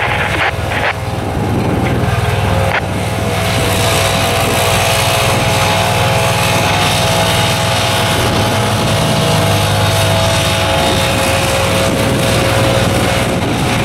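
Gas backpack leaf blower running steadily, its air rushing over the new asphalt, together with the engine of a small ride-on tandem asphalt roller running close by.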